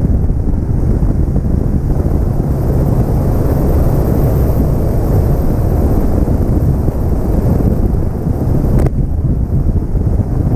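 Heavy wind buffeting on the microphone of a bass boat running across open water, a steady low rumble with no clear engine note; a single faint knock about nine seconds in.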